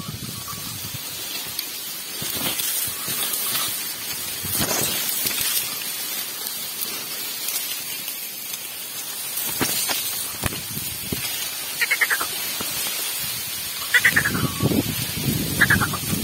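Sugarcane leaves rustling and scraping against a bullock-drawn bed-raising implement and its wooden yoke as it pushes through the cane rows. Near the end come several short calls that fall in pitch.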